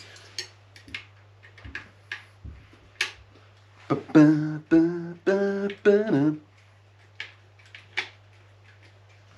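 Small clicks and light taps of parts being handled while a headlight is fitted. About four seconds in, a man sings four short held notes.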